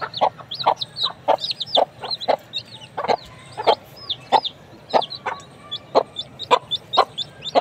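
Baby chicks peeping, short high falling chirps two or three times a second, with short lower clucks from a hen among them.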